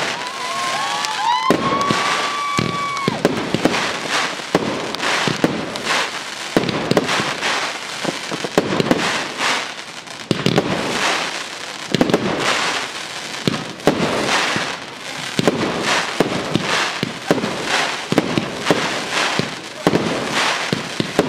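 Aerial fireworks display, with shells going off in a rapid, unbroken run of bangs and crackling. A whistle rises and then holds for about two seconds near the start.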